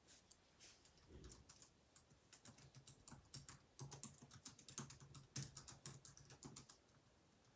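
Faint, irregular clicking of typing on a computer keyboard, the keystrokes coming in quick runs, thickest through the middle and later part.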